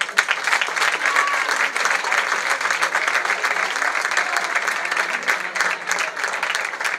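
Audience applauding, breaking out suddenly and holding steady until it thins out near the end.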